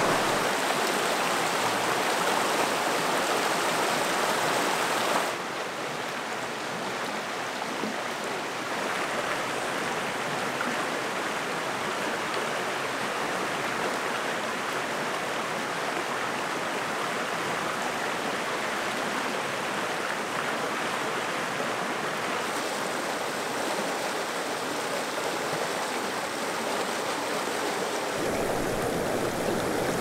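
Steady rush of a trout stream's flowing water and falls, with no other sound standing out. It drops a step in level and becomes less hissy about five seconds in.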